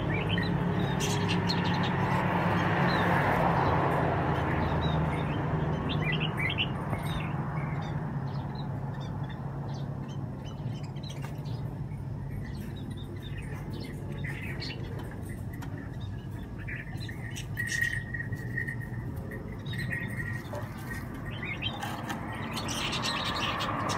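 Scattered short high chirps from a small animal, with a longer held call a little past the middle, over a low steady hum that fades out by about halfway.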